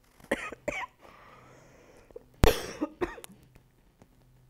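A man coughs once, sharply, about two and a half seconds in, after a few short throat sounds.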